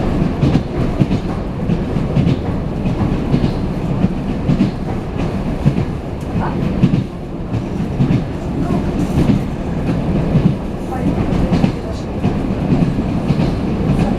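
Wheels of an ED9M electric multiple unit clattering over rail joints, with repeated knocks over a steady running rumble, heard from inside the passenger car while the train runs at speed.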